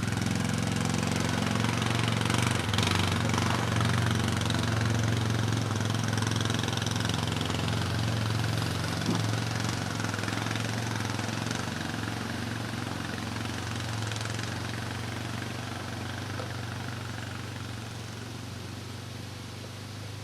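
ATV engine running steadily, gradually fading toward the end.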